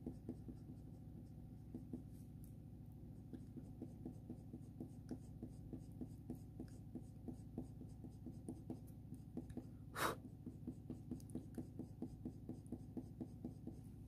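Faber-Castell Polychromos colour pencil scratching on hot-press watercolour paper in quick, short feathering strokes, several a second and faint, with one louder scratch about ten seconds in.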